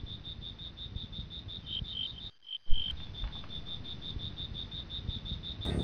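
Crickets chirping in a steady high-pitched pulsing trill, about seven pulses a second, with a second, lower-pitched cricket joining for about a second in the middle. The sound drops out briefly about two and a half seconds in and comes back with a click.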